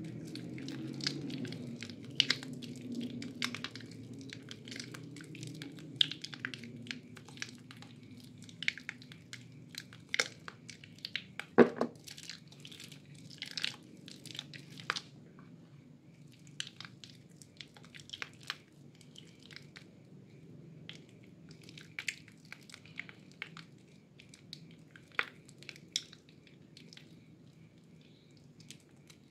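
Soaked bar of white Lervia milk soap squeezed and kneaded in lathered hands: wet squelching with dense, irregular crackling and popping of the soft, waterlogged soap and lather, with one sharper pop about a third of the way through.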